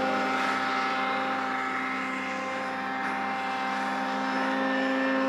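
Snowmobile engine running under load at one steady pitch as the sled climbs through deep powder.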